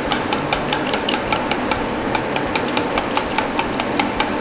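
Quick even clicks and scrapes of kitchen utensils, about four or five a second, from cheddar being hand-grated and beaten egg being stirred with a fork in a steel bowl.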